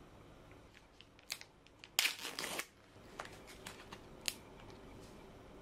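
A thin clear plastic blister tray of gummy candy being opened and handled, with crinkling and clicking. A loud crackle comes about two seconds in, then a few small clicks as the gummy is pulled out of the tray.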